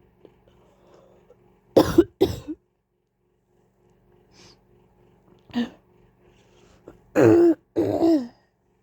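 A person coughing: two sharp coughs close together about two seconds in, a single weaker cough in the middle, then two longer, throatier coughs near the end.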